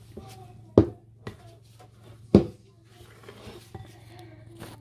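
Pasta dough being mixed by hand in a bowl, with two sharp knocks about a second and a half apart and a fainter one between, the bowl knocking as the dough is worked.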